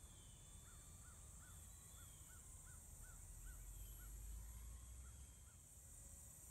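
Near silence with a bird calling faintly in a run of short, evenly spaced high notes, about two or three a second, over a low rumble.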